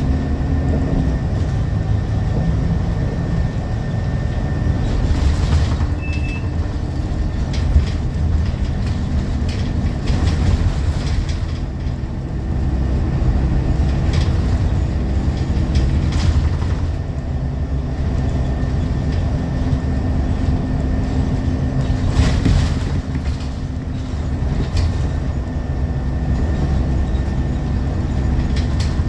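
Scania L94UB city bus heard from inside the cabin near the back while driving: the rear diesel engine and drivetrain give a continuous low rumble whose note shifts in pitch a few times. A thin steady high whine runs underneath, with occasional rattles from the body.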